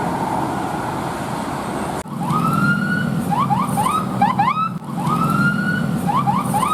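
Bus telolet horn playing its tune, starting about two seconds in after road noise: a long rising note followed by a run of quick rising chirps. The tune plays twice, over a low steady hum.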